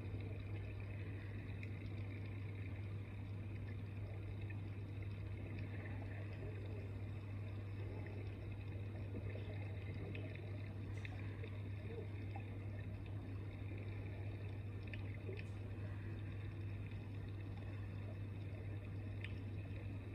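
Steady low hum under a faint watery hiss with a few soft scattered ticks: the underwater soundtrack of dive footage playing back through a tablet's speaker.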